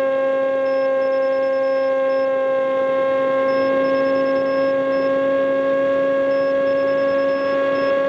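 Radio-controlled model plane's motor and propeller running at a steady drone, holding one pitch in flight.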